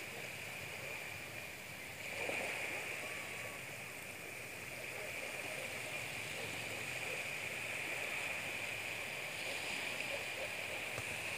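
Steady outdoor background noise: an even hiss with a constant high-pitched drone and no distinct events.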